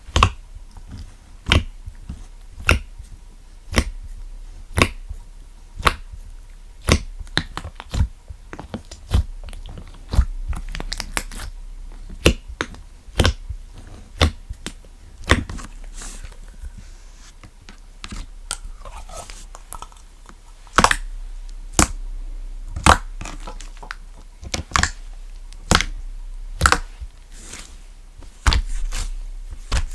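Funfetti slime being squeezed and poked by hand, giving sharp popping clicks about once a second with softer squishing between them.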